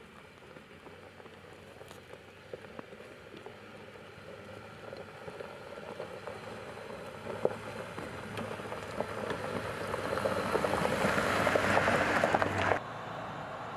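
Jeep Gladiator's tyres crunching over a dirt and gravel track, with small stones crackling and popping, growing louder as the truck approaches and passes close, then cutting off abruptly about a second before the end.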